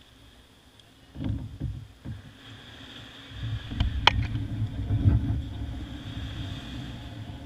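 Fishing kayak's plastic hull scraping and bumping over wet sand and through shallow surf as it is pushed off the beach, heard from a camera mounted on the kayak: a few low thumps, then from about three seconds in a steady low rumble. There is one sharp knock about four seconds in.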